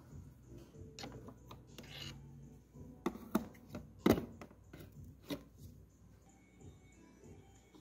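Flat screwdriver prying at the plastic clips of a car's fuse box cover: a few sharp plastic clicks and snaps, the loudest about four seconds in.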